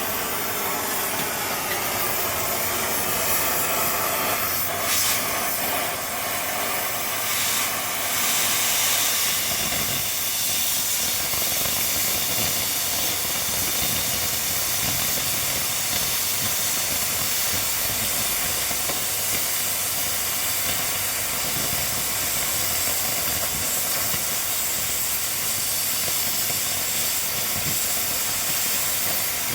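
Oxy-fuel gas cutting torch hissing steadily as it cuts through a steel beam, with a couple of brief sharp sounds about five and seven seconds in.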